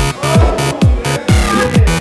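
Electronic dance music with a pounding kick drum about two beats a second and synth lines over it.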